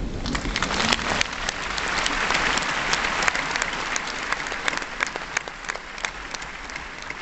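A large audience applauding, the clapping swelling about a second in and thinning out near the end.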